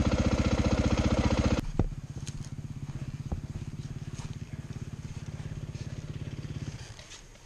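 Dirt bike engine running at low revs with an even putter, louder for the first second and a half, then settling to a quieter idle that fades near the end.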